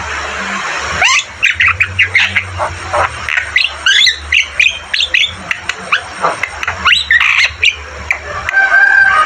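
Javan myna (jalak kebo) calling: a rapid run of harsh chattering and squawking notes mixed with sweeping whistles, with loud upward-sweeping calls about a second in and again near seven seconds, and a few held whistled notes near the end.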